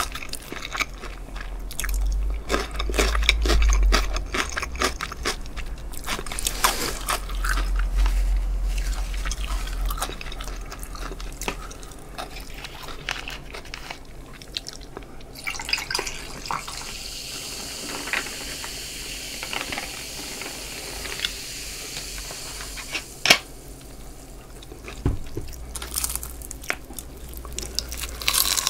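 Close-miked chewing and crunching of crispy fried chicken. Midway, cola is poured over ice in a glass and fizzes, with a sharp clink a little after. Near the end there are fresh crunchy bites into a fried drumstick.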